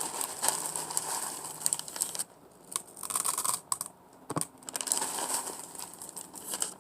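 Small foam beads being added to a bowl of slime mixture, giving a run of small clicks and rustles with brief pauses and one sharper click past the middle.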